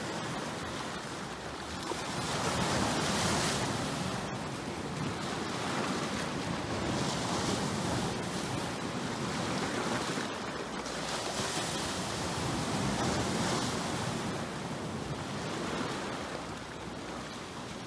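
Sea waves breaking and washing against a shore of large boulders, the surf swelling louder every few seconds as each wave comes in.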